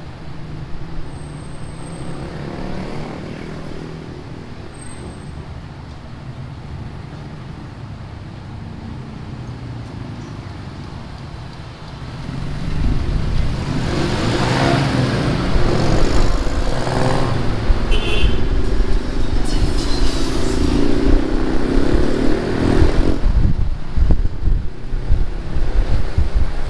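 A jeepney's engine and road noise heard from a moving jeepney: a steady rumble for the first dozen seconds, then much louder from about twelve seconds in, with wind buffeting the microphone.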